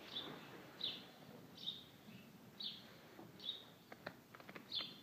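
A small bird chirping over and over, one short high chirp about every second, faint and echoing slightly in a large building. Near the end a quick run of faint sharp clicks.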